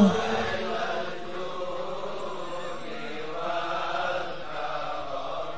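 Faint, soft chanting voices carrying on evenly, just after a loud held sung note cuts off at the very start.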